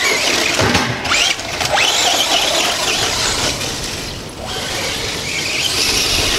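Traxxas Slash 4x4 electric RC truck driving flat out. Its motor and gear drivetrain give a loud, high-pitched whine that rises and falls with the throttle. The whine eases about four seconds in and then climbs again as the truck turns and speeds back.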